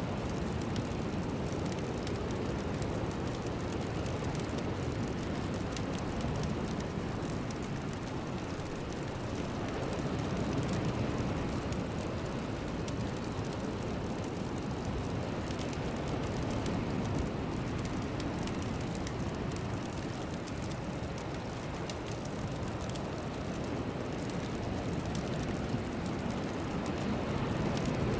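Steady, even rushing noise with a fine crackling texture, an ambient sound bed with no melody or voice.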